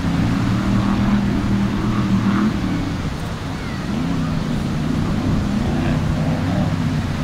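Offshore racing powerboat's engines running at speed, a steady low drone whose pitch wavers, dipping and rising about halfway through and again near the end.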